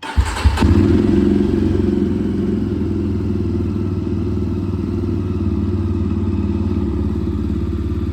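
Jawa 42 Bobber's single-cylinder engine starting: a short crank and catch, a quick rise in revs about half a second in, then a loud, steady idle with its exhaust beat, the revs easing slightly over the first couple of seconds. The engine is heard in a basement car park.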